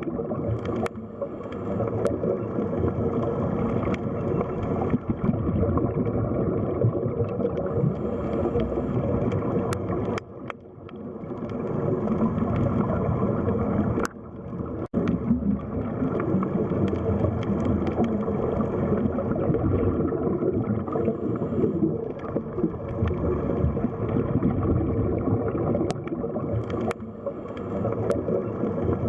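Underwater sea ambience: a dense, muffled rush and gurgle of water with a faint steady hum, dipping briefly twice.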